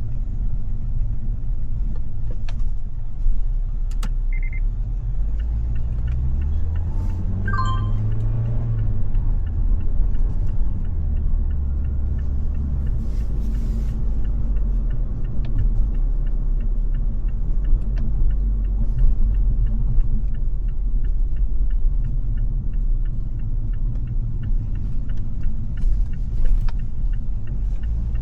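Car driving in busy city traffic: a steady low rumble of engine and road noise. The engine note rises and falls again about a quarter of the way in, and a brief high beep sounds near the start.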